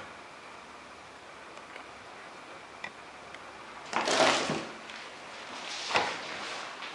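Recoil-test rig jolting a mounted Discovery 3-12x40SF rifle scope: two loud sliding clunks, about four and six seconds in, after a couple of faint clicks.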